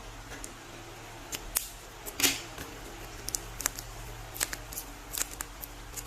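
Paper crinkling and crackling as a paper squishy is handled and unwrapped: irregular short, sharp crackles, the loudest about two seconds in, over a faint low steady hum.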